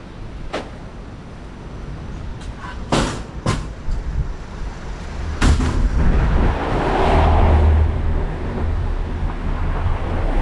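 Street noise: a motor vehicle passing close by, its rumble swelling past the middle and easing off, after a few sharp clicks.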